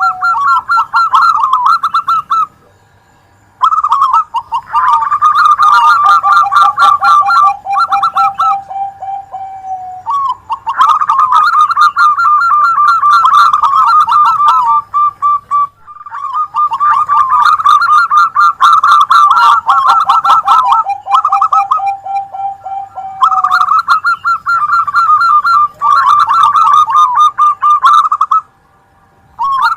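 Zebra doves (perkutut), at least two, singing together: rapid staccato cooing trills overlapping at two pitches, one lower than the other. The phrases run for several seconds, with a short pause about two and a half seconds in and another near the end.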